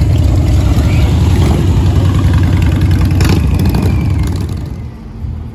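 Cruiser motorcycles riding slowly past at low revs, their low engine and exhaust note loud at first and fading away after about four seconds as they pull off.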